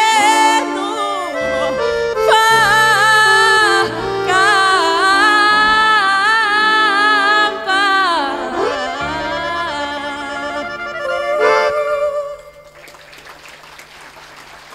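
A woman sings the closing phrase of a Neapolitan song with wide vibrato on long held notes, over a live accordion accompaniment. The music stops about twelve seconds in and applause follows.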